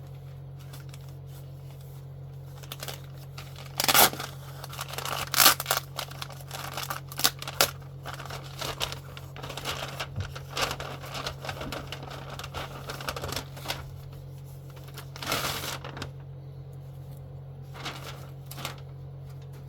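Paper and plastic packaging being handled and torn open by hand: irregular crinkling and tearing with several sharp rustles, the loudest a few seconds in. A steady low hum runs underneath.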